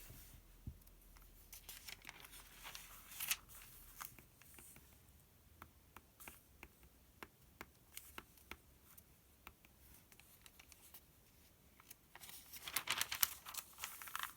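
Pages of a paper sales circular rustling, with a louder rustle of a page being turned near the end. In between come many light, separate taps on the paper.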